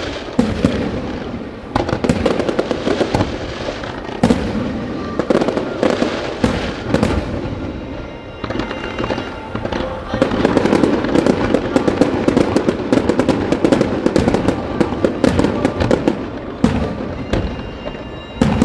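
Fireworks display: a continuous barrage of aerial shells bursting, many sharp bangs in quick succession over a dense crackle.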